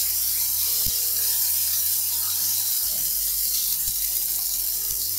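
Sake poured into a hot pan of seared fish fillets and clams, sizzling and bubbling steadily as the alcohol cooks off.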